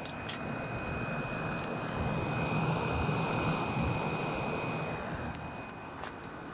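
Toshiba 6,000 BTU air conditioner running on cool, its GMCC compressor and Welling fan motor going together in a steady, even rush of air with a faint constant high tone over it. The compressor sounds nice: the unit is running normally now that its fan is free.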